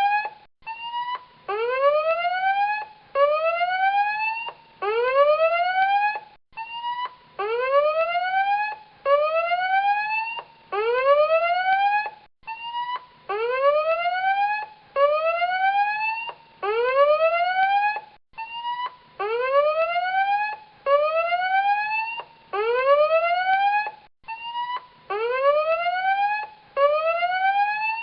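Tsunami warning alarm siren sounding a repeating rising whoop, about one sweep a second, each climbing steeply in pitch. The pattern pauses briefly about every six seconds and starts again.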